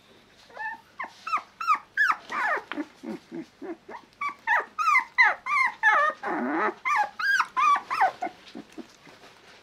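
Shiba Inu puppy yipping and whining in a quick run of short, high calls, each falling in pitch, while play-biting a hand, with a brief rough growl about six seconds in.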